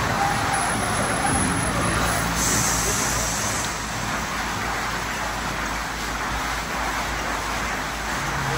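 Tunnel car wash at work: rotating foam brushes spinning against a soapy car over a steady wash of water spray and machinery hum. A brief high hiss comes in about two and a half seconds in and lasts about a second.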